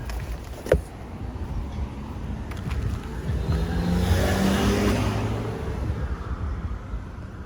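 A car driving past, its engine note swelling to a peak midway and then fading away. A single sharp metallic clank sounds under a second in.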